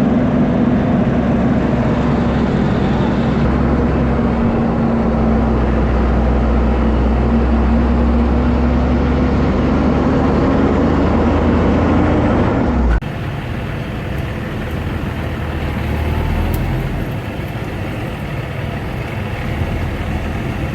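Farm machinery engine running steadily under load, with a held whine that dips slightly and then rises. About two-thirds of the way through it cuts off abruptly to a quieter, lower engine rumble.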